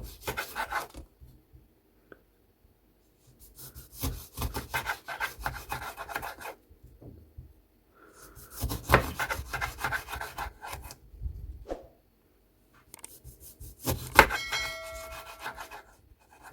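A knife slicing through a lemon on a cutting board, with quick sawing strokes in four bursts separated by short pauses. A short ringing clink comes near the end.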